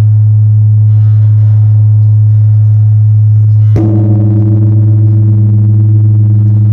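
Large 5-ton bronze bell ringing loudly with a low, steady hum, struck again about four seconds in, after which its higher tones ring out brighter over the hum.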